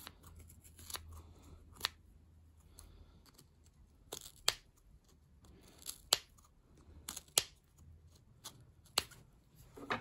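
Scissors snipping through hair wound around a vacuum cleaner's bristle brush roller: about ten short, sharp snips at irregular intervals, some in quick pairs.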